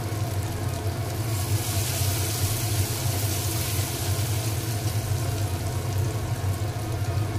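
Masala frying in mustard oil in a steel pot: a steady sizzle that grows stronger for a few seconds in the middle while it is stirred with a slotted spoon. Under it runs a steady low hum from the induction cooktop.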